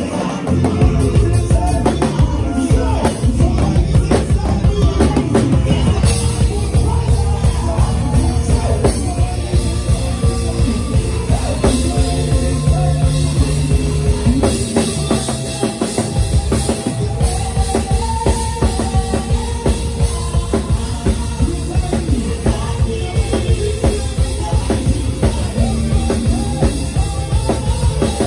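Live praise band playing an upbeat groove, with the drum kit and bass prominent, recorded on a phone.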